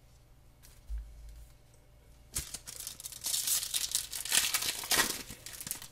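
A 2007-08 O-Pee-Chee hockey card pack's wrapper being torn open and crinkled by hand, a loud crackling tear running for about three seconds from a little after the middle. A soft low bump comes about a second in.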